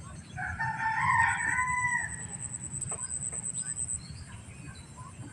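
A bird's single long call, about a second and a half, early on with a steady high-pitched tone and a low rumble underneath.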